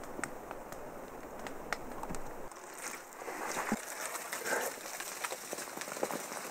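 Gloved hands digging through wet, muddy soil: irregular scraping and squelching with small gritty clicks, becoming busier about two and a half seconds in.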